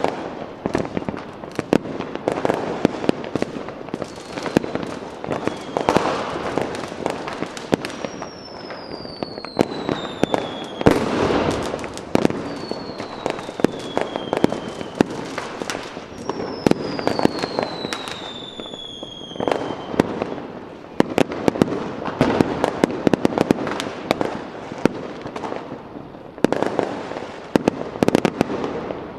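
Fireworks going off: a steady run of rapid crackles and bangs, with several whistling fireworks falling in pitch in the middle and one louder bang about eleven seconds in.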